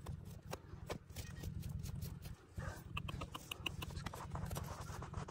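A rapid, irregular series of sharp clicks and knocks over a steady low rumble, with a few short ringing ticks about halfway through.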